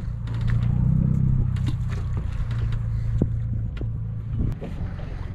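A fishing boat's engine running with a steady low hum that weakens about four and a half seconds in, with scattered light clicks and knocks on top.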